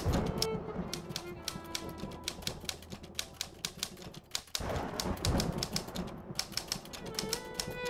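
Rapid typewriter keystroke clicks over background music, with a rushing swell of noise near the start and again about five seconds in.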